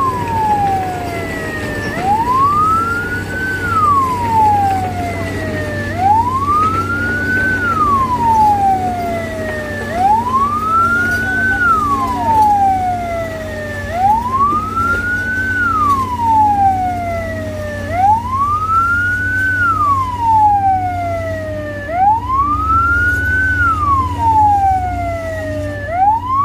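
Ambulance siren in a slow wail, rising then falling about once every four seconds, with an engine running steadily underneath.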